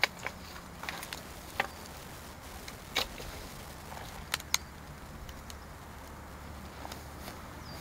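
Dry branches being picked up and sorted by hand, knocking against each other. A handful of short, sharp clacks, the loudest about three seconds and four and a half seconds in.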